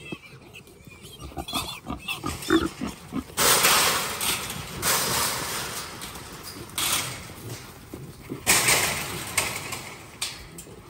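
Trapped wild hogs squealing, agitated, in several long, loud bursts from about three seconds in, with scattered shorter grunts and noises before them.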